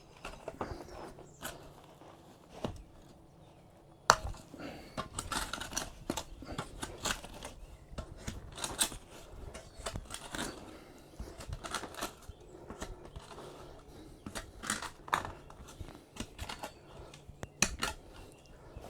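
Irregular scraping, crunching and clicking of hand work setting a post in the ground, with soil or dry concrete being moved around it, and a sharp knock about four seconds in.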